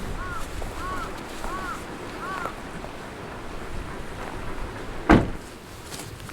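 Wind noise on the microphone, with four short arched chirps in the first two and a half seconds and a single loud thump about five seconds in.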